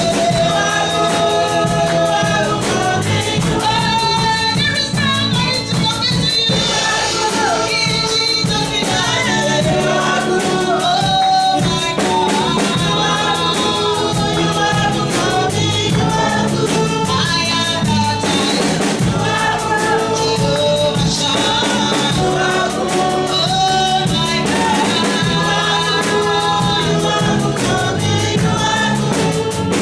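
Gospel worship music: voices singing with a band, a steady beat with drums and tambourine.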